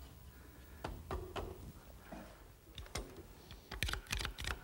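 Scattered light knocks of wooden pieces being pushed together into a table frame. Near the end comes a quick run of clicks and taps as bar clamps are slid into place and tightened across the frame.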